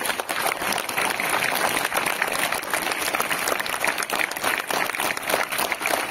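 A crowd of schoolchildren applauding: dense, steady clapping.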